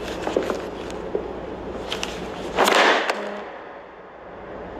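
A folded paper ddakji tile thrown hard onto the ground: one loud slap with a whoosh about two and a half seconds in, after a few light taps.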